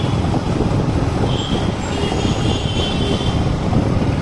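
Wind rushing over the microphone and engine noise from a moving two-wheeler riding through traffic. There are a few brief high-pitched squeals about a second and a half in, and again between two and three seconds in.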